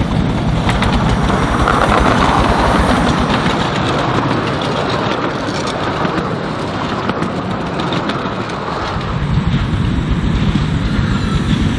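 A 1937 G&S Engineering 10¼-inch gauge 4-4-2 miniature steam locomotive passes close by, loudest about two seconds in. It is followed by the rumble and clicking of its loaded open passenger carriages running over the rails.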